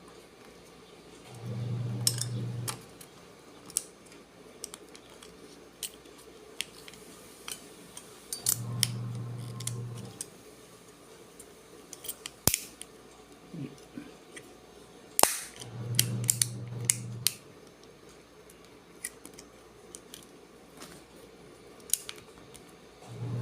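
Sharp clicks and snaps of small plastic and metal switch parts being handled and fitted together while an illuminated wall switch is reassembled. A low hum, about a second and a half long, comes back roughly every seven seconds.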